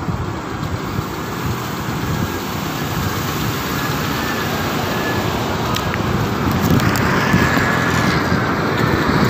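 Steady roadway traffic noise that grows gradually louder, with a couple of faint clicks about six seconds in.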